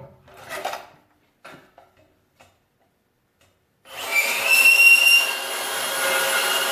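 A few light knocks from handling, then about four seconds in a power saw starts up and runs with a steady high whine, cutting through steel exhaust pipe.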